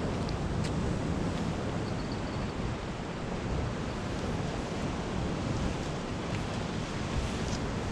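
Steady rush of wind and breaking sea surf.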